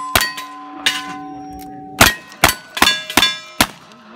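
Revolver shots hitting steel plate targets, each hit leaving the plate ringing: one shot right at the start, then after a pause of about a second, five quick shots at about two a second, each followed by a ringing clang.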